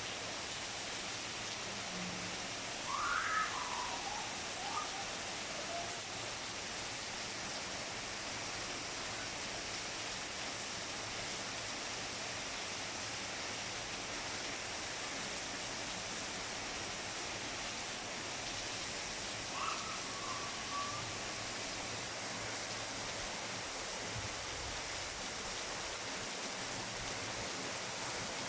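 Steady hiss of falling rain. Twice, about three seconds in and again near twenty seconds, a brief high call rises over it.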